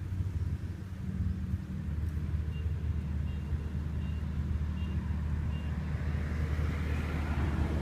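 Engine of a farm machine running steadily with a low hum, while a faint short beep repeats about once every 0.7 seconds from a few seconds in. A hiss swells near the end.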